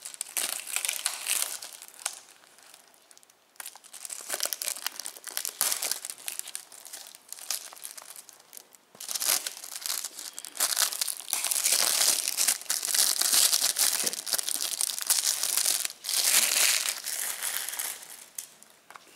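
Clear plastic shrink wrap being torn and peeled off a 4K Blu-ray disc case, crinkling and crackling in uneven bursts. It is louder and more continuous over the second half.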